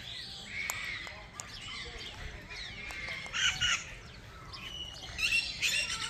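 Several aviary birds calling over one another: repeated chirps and whistles, with harsh squawks about three and a half seconds in and again near the end.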